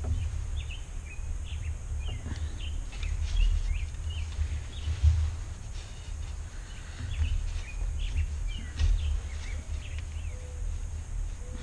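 Small birds chirping in many short calls over a low, uneven rumble.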